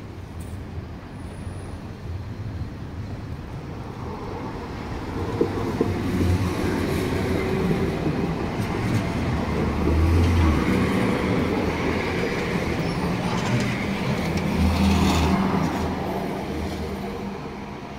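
Cologne Stadtbahn low-floor tram of the KVB 4000 series passing close by. The hum of its electric drive and the rolling of its wheels on the rails build from about four seconds in, stay loud as the cars go past, and die away near the end.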